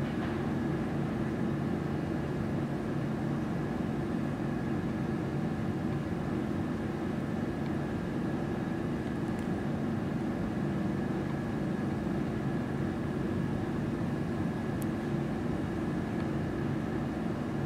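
Steady jet engine drone from the Boeing 747-100 Shuttle Carrier Aircraft flying past, a low rumble with a faint constant whine above it.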